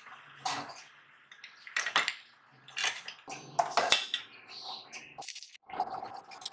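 Metal parts clinking and knocking together as a small electric fan motor and its bracket are handled and set against a steel frame. Near the end there is a short rough crackle as a stick-welding arc is struck.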